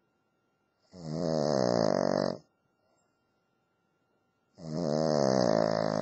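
Cavalier King Charles spaniel snoring in her sleep: two long snores, each about a second and a half, with a hissing edge and a quiet pause of about two seconds between them.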